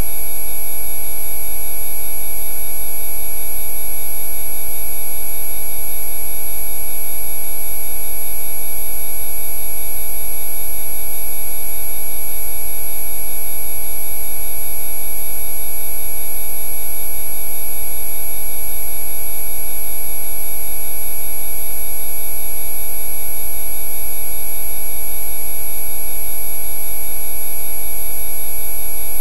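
Electronically generated Rife frequency tones: many pure tones held together at fixed pitches, unchanging and loud, with a low hum beneath.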